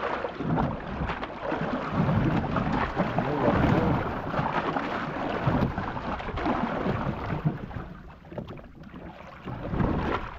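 Wind buffeting the microphone on an open boat at sea: a rough, uneven rushing noise, heaviest in the low end, that rises and falls and eases briefly near the end.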